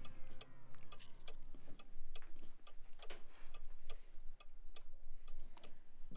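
Cutlery clicking and tapping against china plates, light irregular clicks several times a second.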